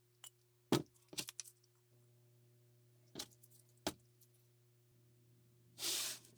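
Sharp clicks and knocks of hard objects being handled and set down, several in quick succession early on and two more later, then a short scraping hiss near the end, over a steady low hum.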